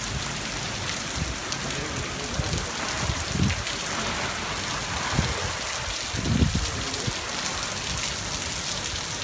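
Heavy rain pouring down steadily, a dense even hiss of drops on surfaces. Two brief low rumbles come through, about three and a half and six and a half seconds in.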